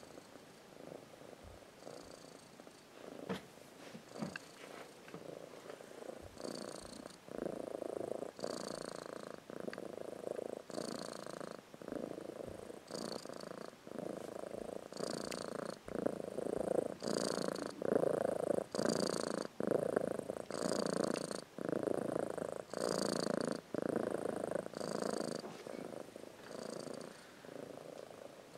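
Domestic long-haired cat purring close up, in a steady rhythm that swells and dips with each breath about every two seconds. Soft at first, louder through the middle, easing off near the end.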